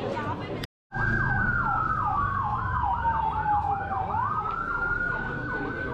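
Emergency vehicle siren sounding in two patterns at once: a fast up-and-down yelp nearly three times a second, over a slower wail that falls and then climbs back up. The siren starts just after a brief break in the sound near the start.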